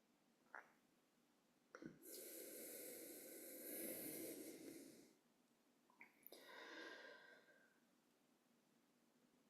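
A person breathing slowly through the nose, heard as two soft breaths: a long one about two seconds in, lasting about three seconds, then a shorter one about six seconds in. Faint clicks come just before the first breath.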